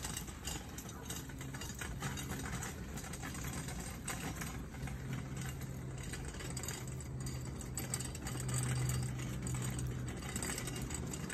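An engine idling with a steady low hum, which grows louder about five seconds in and is strongest near the end.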